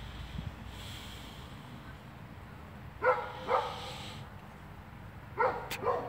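A dog barking: two short barks about three seconds in, then two more near the end, with a sharp click between the last two.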